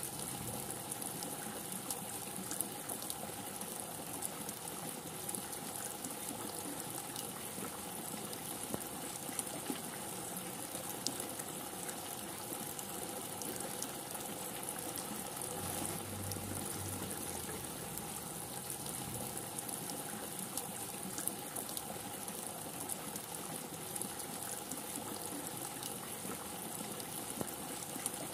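Steady heavy rain falling, an even hiss with scattered sharp ticks of drops striking close by.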